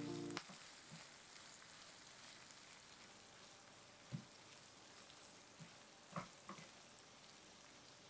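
Shrimp in butter sauce sizzling faintly in a frying pan, with a few soft knocks of a silicone spatula as it is stirred.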